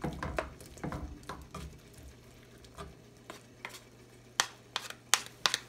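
A cooking utensil stirring sautéed bottle gourd and egg in a pan, with irregular scrapes and sharp clicks against the pan, a few of the sharpest near the end.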